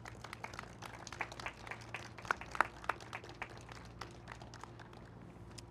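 Scattered applause from a small group of people clapping after a speech. The claps are densest for the first three seconds or so and thin out toward the end.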